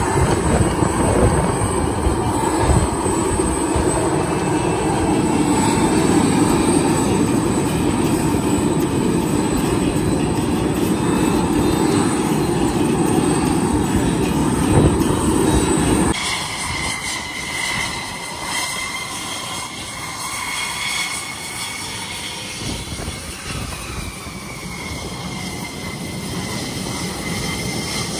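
F-16 jet engines running on the ramp: a steady, loud rush of engine noise with a thin high whine. About 16 seconds in it changes abruptly to a quieter jet whistle that wavers slightly in pitch while an F-16 taxis.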